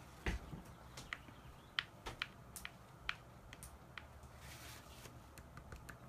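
Faint, scattered small clicks and taps of a wooden skewer against a plastic paint palette while paint is mixed, with a brief soft rustle about four and a half seconds in.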